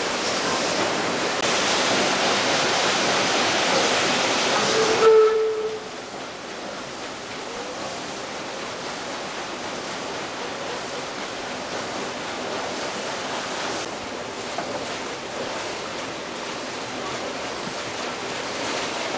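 Rushing, churning water in a river lock chamber, loud for the first five seconds and then softer. A brief tone sounds about five seconds in.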